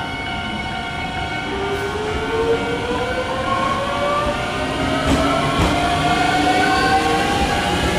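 Electric train pulling away: its traction motors whine, rising slowly and steadily in pitch from about a second and a half in, over a steady hum. There are a couple of knocks about five seconds in, and the sound grows louder toward the end.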